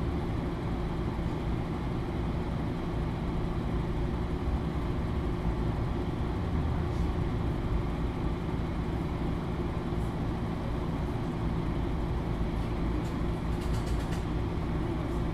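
MAN Lions City NL323 city bus's diesel engine running steadily at an unchanging pitch, a low drone with a few faint ticks near the end.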